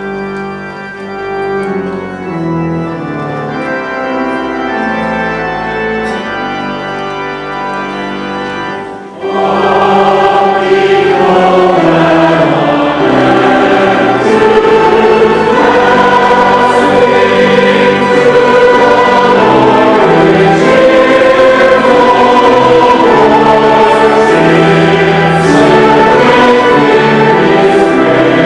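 Organ playing alone, then about nine seconds in a choir comes in singing with the organ and the music becomes much louder.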